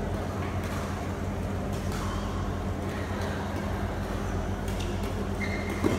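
Badminton rally: sharp racket hits on the shuttlecock, several spread through, the sharpest just before the end, over a steady low hum of the hall. A brief high squeak comes near the end.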